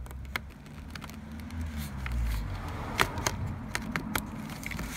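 Hands handling a JVC GR-C1E camcorder as its viewfinder cable is pushed into place: rubbing and a low rumble of handling on the microphone, with a few sharp clicks and knocks, most around three to four seconds in.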